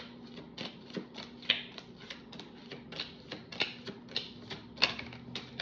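A deck of tarot cards being shuffled by hand, the cards snapping and clicking against each other in quick, irregular taps, a few a second.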